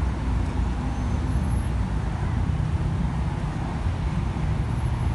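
Road traffic of many cars moving slowly past: a steady low rumble of engines and tyres.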